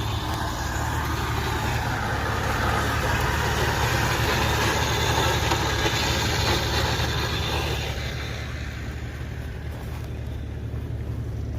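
Off-road vehicle engine running steadily, with a louder rushing noise over the first eight seconds that then dies away.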